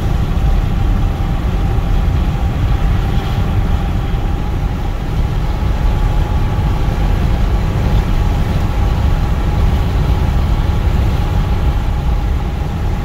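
Steady road and engine noise heard inside a car cruising on a highway: an even low rumble with a faint steady hum above it.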